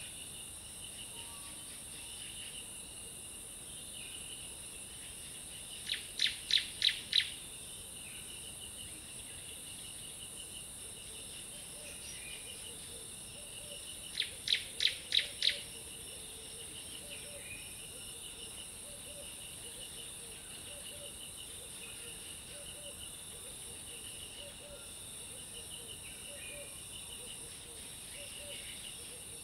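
Tropical forest ambience: a steady high insect buzz and repeated chirping, with a bird calling a quick run of five sharp notes about six seconds in and again about fourteen seconds in.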